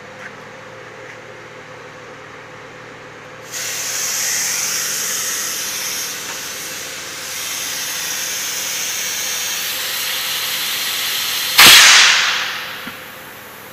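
Compressed air hissing steadily for about eight seconds, then a sudden loud blast of air that fades away over about a second: a bead seater's air tank discharging to seat a truck tyre's bead on its rim.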